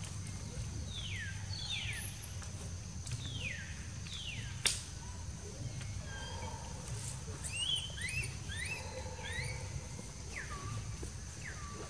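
Baby macaque crying in a series of high, falling squeaks, which come shorter and more broken in the second half. A single sharp click sounds about halfway through.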